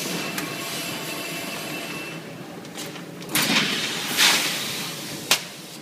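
Semi-automatic washing-powder packing machine filling a plastic bag: a steady hiss of granules pouring with a faint thin whine for about two seconds. Then comes loud rustling of the heavy plastic bag as the filled bag is handled, and a single sharp click near the end.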